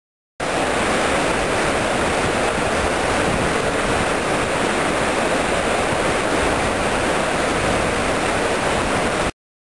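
Treated wastewater rushing and churning where it pours out of a culvert into a concrete outflow channel: a steady rush that starts and stops abruptly.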